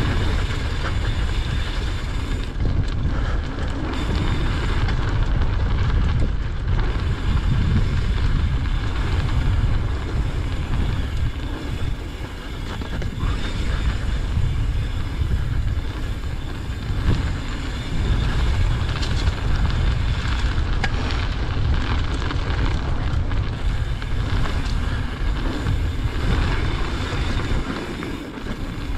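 Wind rushing over the mic of a mountain bike camera while the bike rolls fast down a dirt trail, with tyre noise and scattered small knocks and rattles from the bike over bumps.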